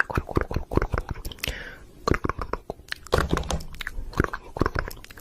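Chewing on something crunchy: quick, irregular crunches and clicks, easing off about two seconds in and picking up again around three seconds.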